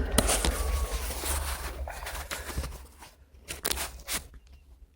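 Plastic car door trim panel being pried and pulled off its clips: scraping and rattling plastic with several sharp clicks, dying down after about three seconds apart from a few last clicks.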